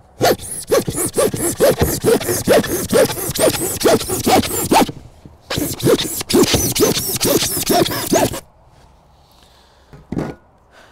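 A hand saw with in-line teeth, made for PVC and plastics, cutting through foil-faced Celotex rigid foam insulation board in quick rasping back-and-forth strokes, about four a second. It saws in two bouts with a short break between and stops about eight seconds in.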